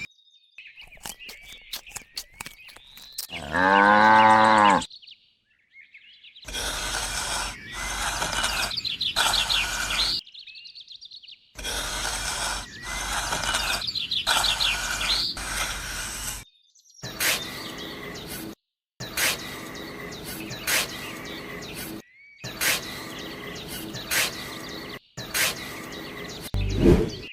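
Birds chirping, mixed with repeated short clicks and taps, in several short segments that cut in and out abruptly. About four seconds in comes one drawn-out animal call with a low, pitched voice.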